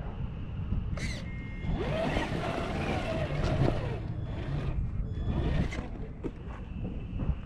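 Small electric motor of an RC car whining, its pitch rising and falling through the middle of the stretch, over a steady wind rumble on the microphone. There is a sharp click about a second in.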